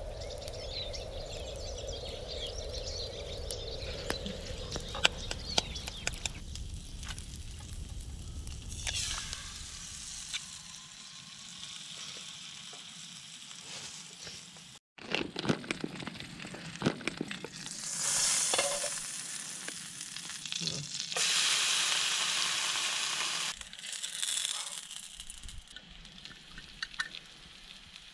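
An egg frying in a small camping frying pan on a gas canister stove: sizzling that swells and fades, with sharp clicks and scrapes of a utensil against the pan. A low steady rumble fills the first several seconds.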